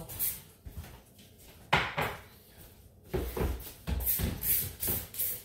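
A single sharp knock about two seconds in. Near the end comes a run of quick squirts from a trigger spray bottle, about two a second.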